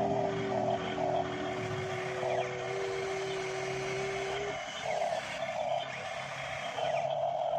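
Radio-controlled model excavator's motors running as the arm and bucket scoop mud: a steady tone for about the first four and a half seconds, with a higher whine that comes in short bursts and then runs on near the end.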